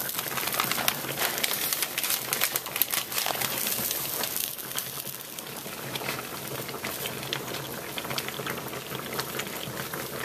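Pot of jalapeños and tomatoes boiling for salsa: water bubbling with a steady crackle of many small pops.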